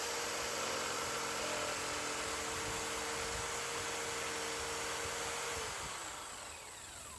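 A power tool motor runs steadily with a constant whine. It is switched off near the end and winds down, its whine falling in pitch over a second or two.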